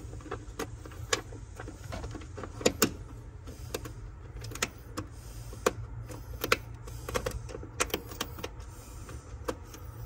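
Irregular small clicks and taps of a hand tool and the plastic hood release handle being worked at its mounting bracket while the new hood release cable is fitted, over a steady low hum.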